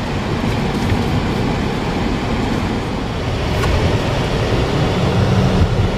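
Steady road noise inside a moving car's cabin: tyres on pavement and engine rumble.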